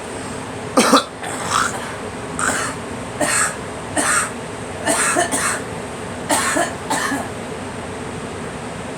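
A person coughing repeatedly: about eight short coughs over some six seconds, the first the loudest.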